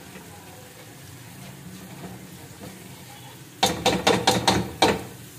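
Ginger-garlic paste frying in oil with a faint steady sizzle, then a quick run of about six sharp knocks against the cooking pot about three and a half seconds in.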